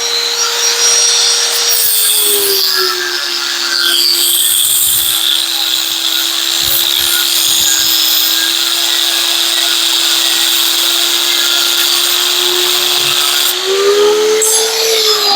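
Harbor Freight angle grinder with an abrasive cut-off wheel cutting rebar. Its motor tone drops in pitch about two seconds in as the wheel bites into the steel, holds low with a steady grinding hiss through the cut, and speeds back up near the end as the cut finishes.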